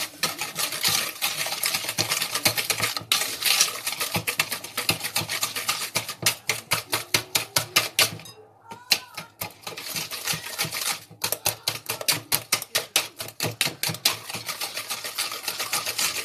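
Wire whisk beating eggs and sugar by hand in a plastic bowl: quick, even clicking strokes of the wires against the bowl, with a short pause about eight seconds in. The sugar is being beaten in until it dissolves into the eggs.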